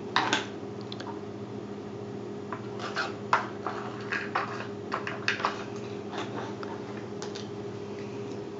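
Irregular light clicks and clacks of hard plastic as a cat paws and noses into a stacked rotating treat-puzzle toy, with a louder knock just at the start. A steady low hum runs underneath.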